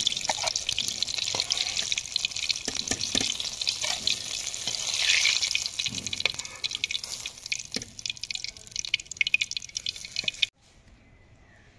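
Hot oil sizzling and crackling in a kadhai of deep-fried pakoras, with scattered sharp pops. The sizzle thins out near the end and then cuts off abruptly.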